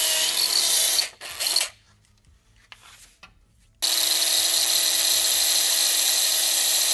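Handheld electric drill with a 3/16-inch bit boring through a plastic grille shell. It runs for about a second, gives a couple of short bursts, stops for about two seconds, then starts again about four seconds in and runs steadily with an even motor whine.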